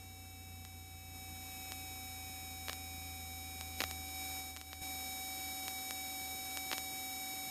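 Faint steady electrical whine of several fixed tones over a low hum, the sound of the cockpit headset intercom feed rather than the open engine. A few faint clicks come through the line.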